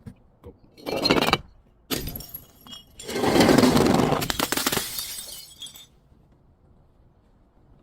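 Glass bottle breaking: a short crash about a second in, another around two seconds, then a longer crash with crunching shards that fades out by about six seconds.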